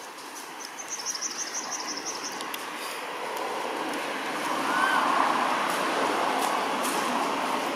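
A rushing noise grows louder over the first few seconds and stays loud from about five seconds in, with a brief faint rising squeak at its peak. A rapid high trill sounds near the start.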